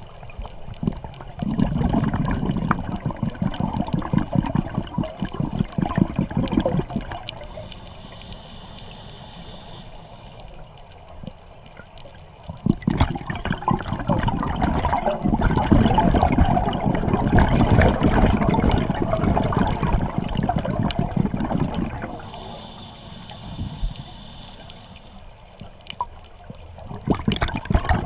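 Scuba diver's exhaled bubbles rushing and bubbling up from the regulator past the underwater camera, in long bursts: one from about two to seven seconds in, a longer one from about thirteen to twenty-two seconds, and another starting near the end. Between them are quieter stretches with a faint steady hiss while the diver breathes in.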